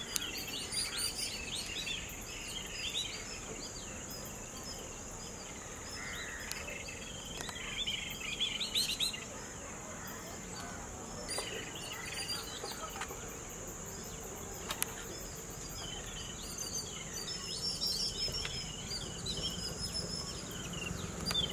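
Outdoor ambience of many birds chirping over a steady, high-pitched insect drone.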